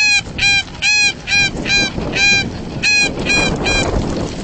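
A 1958 snow goose call blown by mouth: a quick run of short, high-pitched honks, about two a second, that stops a little before the end.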